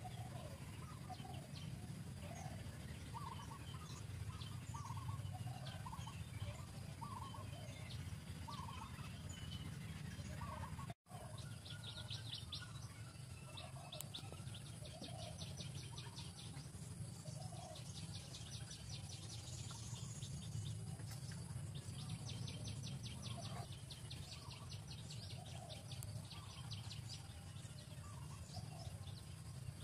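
Birds calling outdoors: short calls repeated every second or so, with bursts of fast, high chirping trills, over a steady low hum. The sound cuts out for an instant about eleven seconds in.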